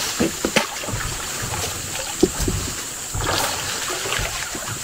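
Water splashing and sloshing as a hooked fish thrashes at the surface of a small stream, with a few sharp clicks; the loudest click comes about two seconds in.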